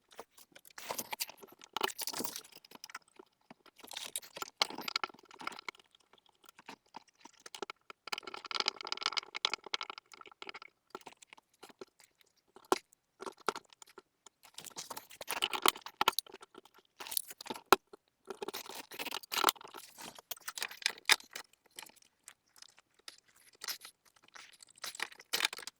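Scattered clicks, scrapes and crinkling of hands working with electrical cables and connectors while wiring them up, with a longer stretch of rustling about eight to ten seconds in.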